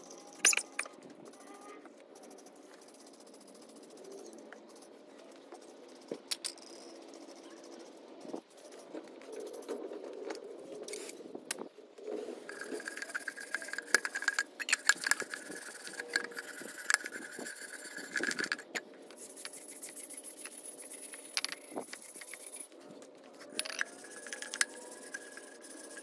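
Aluminum intake manifold pieces being scrubbed and handled while they are cleaned with aluminum brightener: irregular scrapes, clicks and rattles, with a steady high tone through much of the second half.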